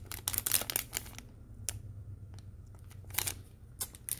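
Plastic packaging crinkling, with sharp clicks of small metal collectible coins being handled. The clicks come thick in the first second or so, then scattered, with another cluster about three seconds in.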